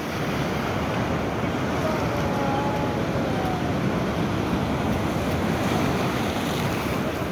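Strong ocean surf breaking against a rocky shore, a steady rushing wash of water with wind buffeting the microphone.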